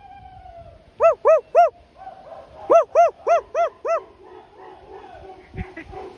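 A dog barking in quick, clear yelps: three about a second in, then a run of five a little later.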